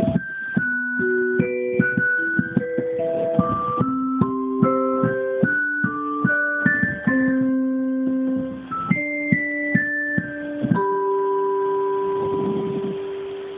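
Digital piano played with its vibraphone voice: a slow melody over chords, each note struck and ringing on, ending on a long held chord that fades out near the end.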